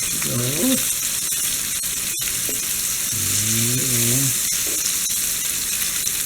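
Small floured fish frying in hot oil in a pan over a high flame: a steady sizzle.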